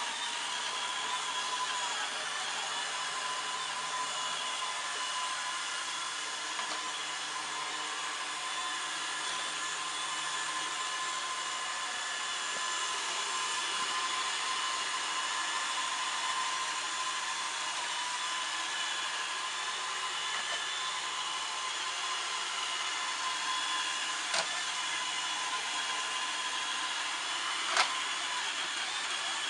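iRobot Roomba robot vacuum running steadily: a whirring hiss with a few held high whines from its motors and brushes. Two sharp knocks come near the end.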